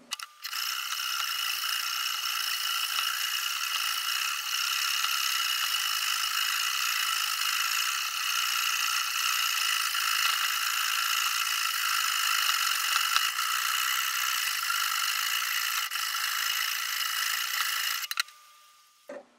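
A sharpening stone stroked along a knife blade clamped in a guided rod sharpener: a continuous high scraping with a steady ringing from the blade. It starts abruptly just after the beginning, stops abruptly near the end, and a single click follows.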